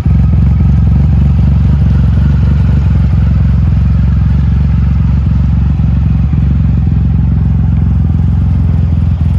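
Triumph Rocket III's 2.3-litre inline three-cylinder engine idling steadily, with a deep, even beat and no revving.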